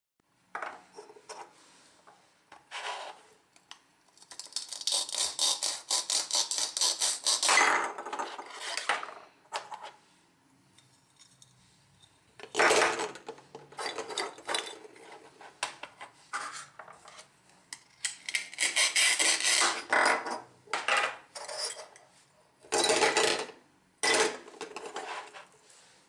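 Plastic toy food pieces and a plastic cutting board handled on a tabletop: irregular clacks and knocks, with two longer stretches of rasping, rubbing noise, one about four seconds in and another near the three-quarter mark.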